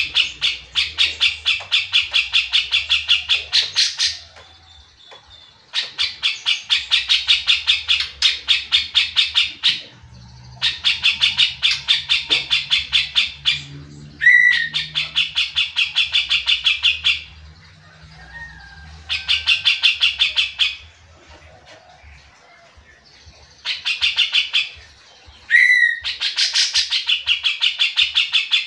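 Grey-cheeked bulbul (cucak jenggot) in full, persistent song: runs of fast repeated notes, about five a second, each run lasting a few seconds with brief pauses between. Twice a single sharp downslurred call cuts in.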